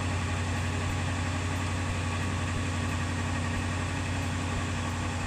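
A 2006 Ford Econoline E-350's 5.4-liter V8 idling steadily, running again on a new fuel filter after the plugged old one had starved it of fuel.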